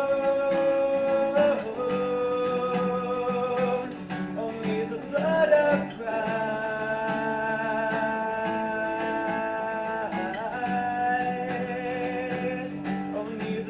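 Worship song: a voice holding long, slightly wavering notes that step in pitch a few times, over steadily strummed acoustic guitar.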